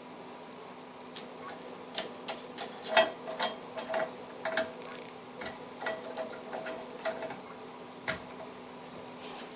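Irregular light clicks and taps of metal tools or parts being handled, some with a short metallic ring, over a steady low hum.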